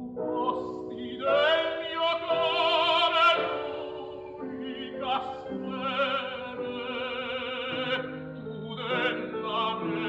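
Opera music: a singer holding long notes with a wide vibrato over instrumental accompaniment, swelling loudest a few seconds in.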